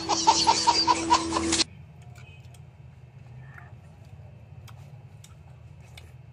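A burst of loud, rhythmic laughter that cuts off abruptly about a second and a half in, leaving low background noise with a few faint scattered clicks.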